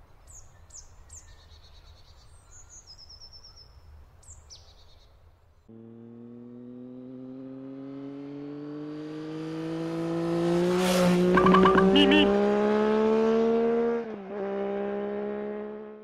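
Birds chirping for the first few seconds. Then a vehicle engine comes in and accelerates, its pitch climbing steadily as it grows louder. The pitch dips briefly about two seconds before the end, then the engine goes on and cuts off.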